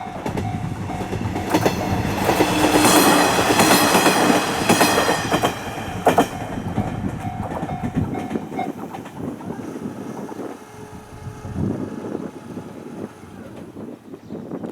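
Level-crossing bell ringing in a steady repeating ding while a JR Hachikō Line diesel railcar passes, loudest in the first half, with wheels clacking over the rail joints. The bell stops a little past halfway and the train's sound dies away.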